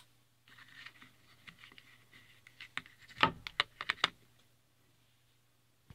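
Hands handling a small plastic RC receiver and its wire leads on a wooden test board: rubbing and rustling, then a quick run of sharp plastic clicks and taps, loudest a little past the middle, over a faint steady low hum.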